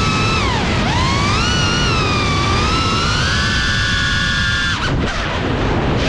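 Brushless motors of a Cinelog35 cinewhoop FPV drone whining, heard from the camera on the drone. The pitch rises and falls with the throttle and holds steady for about a second. It cuts out abruptly near the end as the throttle is chopped.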